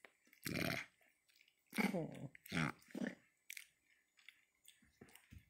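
Java macaques giving short, soft grunting calls with bending pitch, three of them around the middle, with a breathy huff before them and a few small clicks and smacks near the end, the mouth sounds macaques make while grooming.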